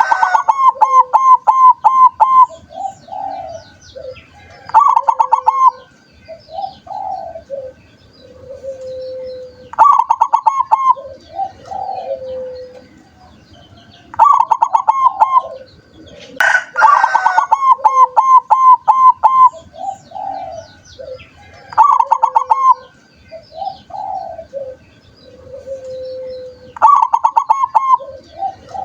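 A zebra dove (perkutut) cooing in its typical phrases. Each phrase is a quick stuttering run of notes followed by lower, drawn-out coos, repeated about every five seconds. About halfway through comes one brief, harsher call.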